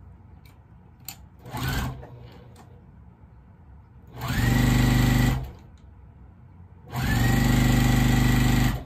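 Electric sewing machine stitching fabric in two runs, a short one and then a longer one of about two seconds, each spinning up quickly to a steady hum and stopping abruptly. A brief quieter burst comes before them.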